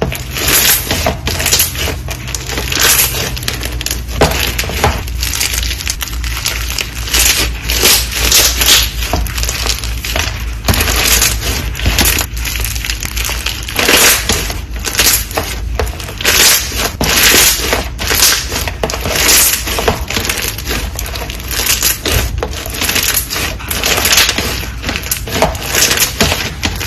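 Something brittle being crushed over and over: a run of crisp crunches at an uneven pace of about one to three a second, over a steady low hum.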